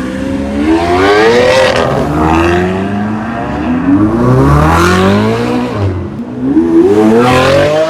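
A car engine revving hard, its pitch climbing in three long rises with a drop after each.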